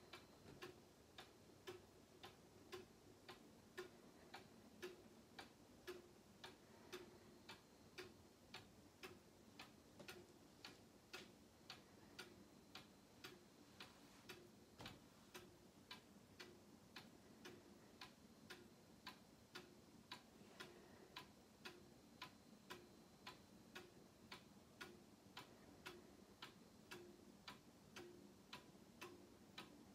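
Mechanical cuckoo clock with a one-day German movement ticking faintly and evenly, about two ticks a second, as its pendulum escapement runs.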